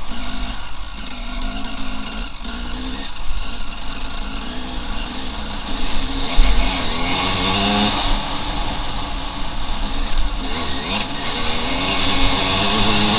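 Enduro motorcycle engine revving up and down as it is ridden, its pitch rising and falling, climbing strongly about halfway through.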